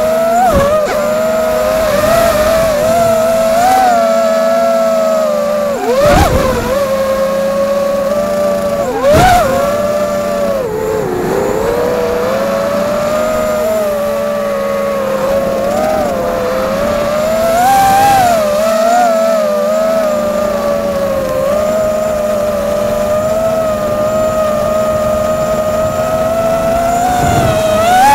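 FPV quadcopter's electric motors and propellers whining, heard from the camera on board, the pitch rising and falling constantly with the throttle. Two brief sharp knocks about six and nine seconds in.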